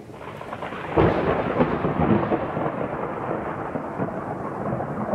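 Thunderstorm sound effect: a clap of thunder about a second in, rumbling on over steady rain.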